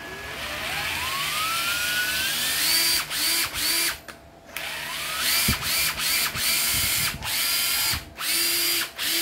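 Hitachi 12V cordless driver-drill motor run by its variable-speed trigger. The whine climbs steadily in pitch over about two seconds as the trigger is squeezed, then comes in a string of short full-speed runs with brief stops, with a longer pause about four seconds in.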